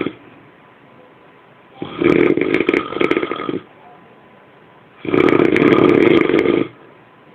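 Loud snoring: two long, rattling snores about three seconds apart, each lasting nearly two seconds.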